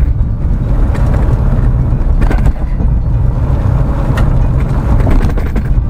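A car driving on a dirt road, heard from inside the cabin: a steady low rumble of engine and tyres, with a few brief sharp knocks.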